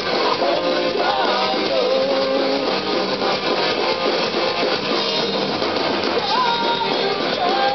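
Punk rock band playing live, electric guitars to the fore with a sung melody over them.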